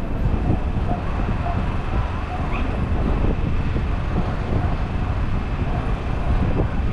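Wind buffeting the microphone with a steady low rumble, and faint voices in the background.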